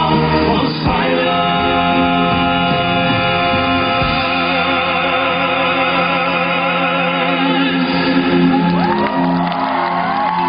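Male vocal quartet singing in harmony with accompaniment, holding long sustained chords. Near the end the audience starts shouting and cheering over the music.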